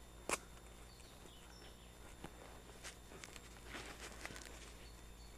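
Footsteps crunching and rustling through dry leaf litter on a forest floor, with a single sharp click about a third of a second in.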